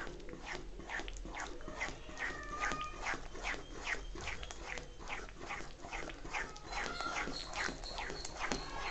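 A spoon stirring a thick, sticky cornflour and sugar-syrup halwa mixture round a pan, a scraping, slapping stroke about twice a second, with a few short squeaky tones. The mixture is thickening and is being stirred non-stop so it does not form lumps.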